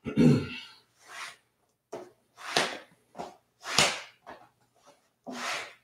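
Leather strap pulled fast through a canvas burnishing cloth, a run of about seven quick swishes, roughly one every half second to a second: friction burnishing of a damp, saddle-soaped edge on vegetable-tanned leather lined with latigo. A short grunt is heard right at the start.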